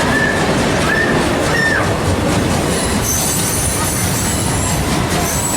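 Excursion train rolling on the rails, a loud steady rumble and clatter, with thin high wheel squeals joining about halfway through.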